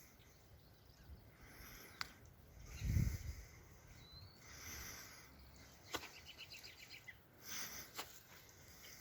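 Quiet outdoor ambience with faint bird chirps, including a short rising whistle and a quick trill, and a few sharp clicks. A low thump about three seconds in is the loudest sound.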